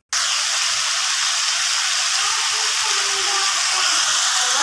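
Potato sticks frying in hot oil in a pan: a loud, steady sizzle that starts suddenly.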